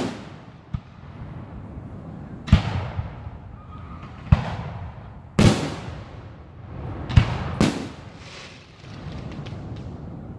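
Aerial firework shells bursting overhead: about six loud booms at irregular spacing, each trailing off, with a short run of small crackling pops a little before the end.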